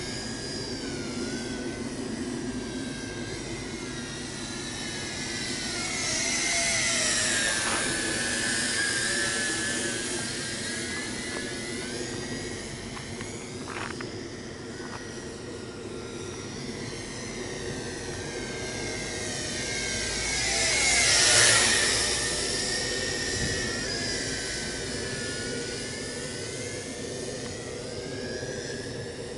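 Tarantula X6 hexacopter's motors and propellers whining as the drone flies about. The pitch slides down and back up as it swings past, with the sound swelling about 7 seconds in and most loudly about 21 seconds in.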